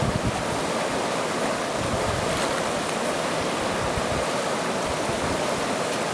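Mountain river current rushing steadily over rocks, with some wind buffeting the microphone in the first moment.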